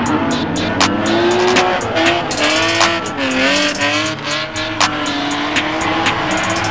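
Drift cars' engines revving under throttle, the pitch wavering up and down, with tyres squealing as the cars slide sideways.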